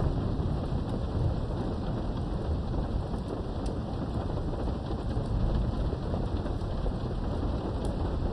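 Steady rain during a thunderstorm, heard from behind a window, with a low thunder rumble dying away in the first second or so. A few sharp drips tick through the rain.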